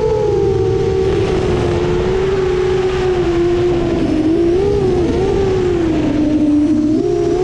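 A 10-inch FPV quadcopter's motors and propellers whine steadily over a rush of wind, recorded onboard. The pitch wavers with the throttle, wobbling twice around the middle, sagging, then stepping back up near the end.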